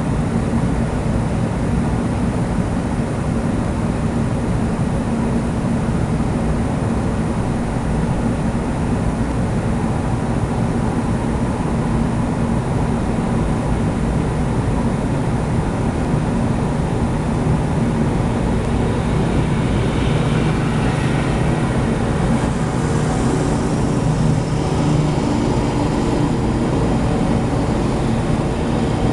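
Petrol lawnmower engine running steadily.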